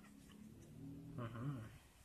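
A short, low vocal sound about a second long that rises and falls in pitch, heard over faint handling of the phone box.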